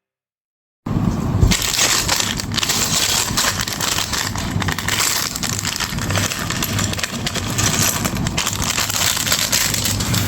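Plastic building-block pieces and their packaging being handled: a dense rustling, crackling clatter of many small clicks that starts suddenly about a second in.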